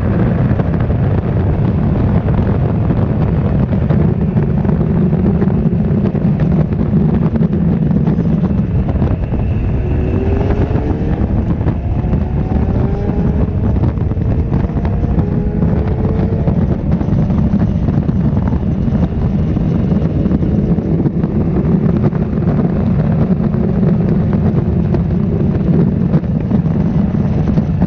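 Honda CB1300's inline-four engine running at highway speed, heard from on the bike with wind rushing over the microphone. In the middle the engine pitch rises several times as it pulls harder.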